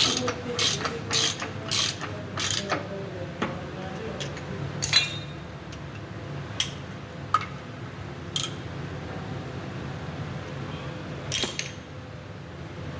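A hand ratchet clicking in a run of quick strokes over the first few seconds, then a few scattered clicks, over a steady low hum.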